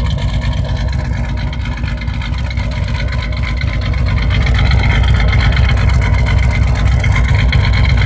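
Exhaust of a 1989 Chevrolet Celebrity's 2.8 L V6 idling, heard at the tailpipe, a little louder from about halfway. The engine is misfiring at idle, which the owner hears as it 'cutting up'.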